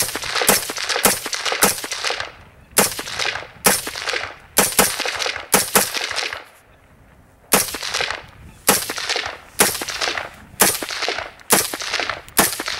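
AR-15 rifle fired semi-automatically as single shots, about one a second, each with a short ringing echo. There is a pause of about a second and a half past the middle before the shots resume.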